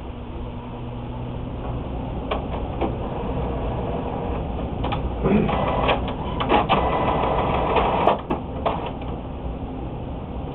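Printer mechanism running as it starts on a test page, with clicks and a louder, busier stretch of whirring from about five to eight seconds in.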